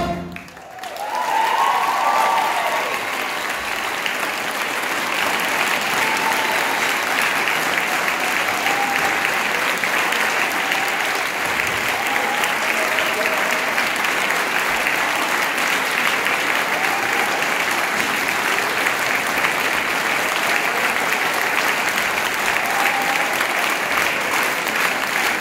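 Music cuts off, and a large audience applauds steadily, with a few cheers and whoops in the first couple of seconds.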